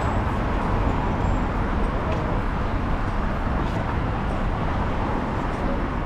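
Steady outdoor city background noise, mostly a low rumble like distant traffic.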